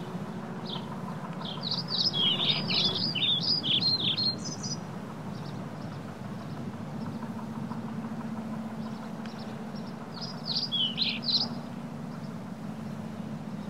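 Birds chirping in two quick flurries of high notes, about two seconds in and again about ten seconds in. Under the chirps runs a steady low rumble from the eBike riding along a dirt path.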